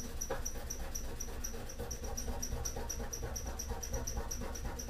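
Steel wool scrubbed quickly back and forth over a painted metal tool box, about five or six scratchy strokes a second, rubbing the old paint off down to bare wear.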